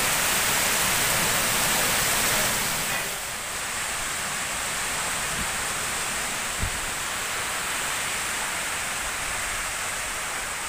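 Heavy rain pouring in a strong windstorm, a steady rushing hiss that drops a little in level about three seconds in.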